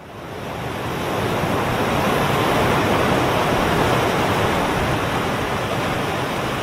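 Audience applauding: a dense, steady patter of many hands clapping that swells up over about the first second.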